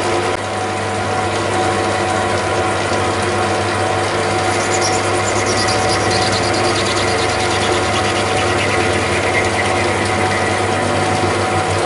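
Metalworking lathe running at about 560 rpm, its gear train giving a steady mechanical whine and hum, while a tool faces off the end of acetal plastic stock. A faint high squeal falls in pitch through the middle.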